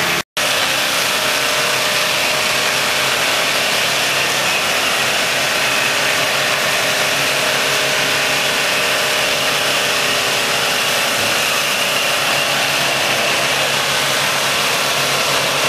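Four-wheel-drive engine running at a steady, unchanging pitch, with an even hiss over it. The sound cuts out for a moment just after the start.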